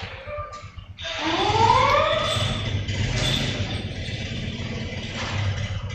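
An engine revving up and back down, starting suddenly about a second in, then running on with a steady low rumble.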